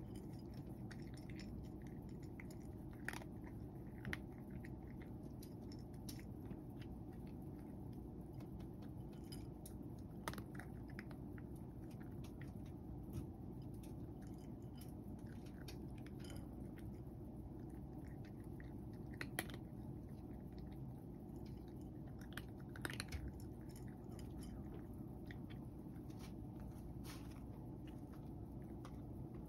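Cat eating dry kibble from a dish, with scattered small crunches and clicks of chewing over a steady low hum.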